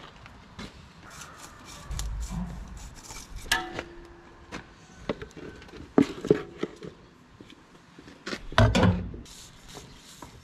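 Hands and a filter wrench working a tractor's spin-on fuel filter as it is unscrewed and the new one fitted: scattered clicks, knocks and rubbing. There is a low thud about two seconds in and sharp knocks about six seconds in and again near nine seconds.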